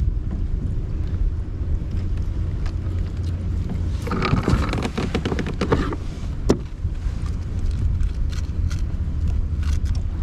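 Wind buffeting the microphone with a steady low rumble. About four seconds in comes a couple of seconds of rapid clattering, then a single sharp knock.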